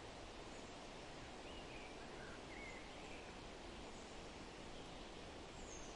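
Steady outdoor background hiss with a few faint, short bird chirps in the middle and one more near the end.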